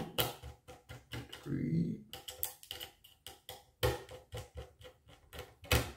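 Small screwdriver clicking and ticking against laptop heat-sink screws, a quick irregular run of small clicks several times a second, as the heat sink is screwed down over the CPU and GPU in numbered order.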